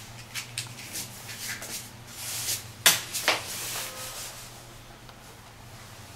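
A match being struck on a matchbox: a few short rustling scrapes, then a sharp strike about three seconds in and a second scrape just after, as the match lights. A faint steady low hum lies underneath.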